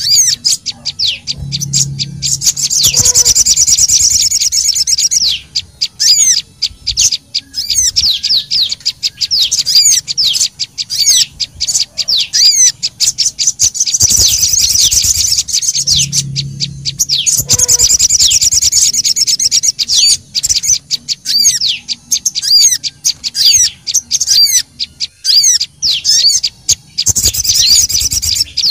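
Bird-lure recording of small songbirds, sogon and prenjak, calling in agitation: dense, rapid high chirps and trills with hardly a pause. The sequence repeats about every 14 seconds.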